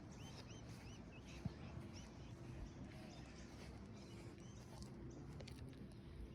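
Faint bird chirping: a run of short, repeated high chirps over low background rumble.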